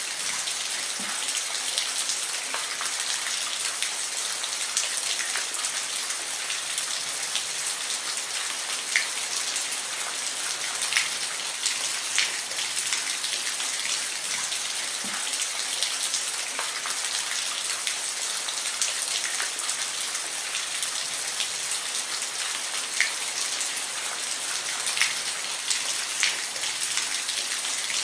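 Steady rain, a dense hiss with individual drops ticking sharply here and there on a surface.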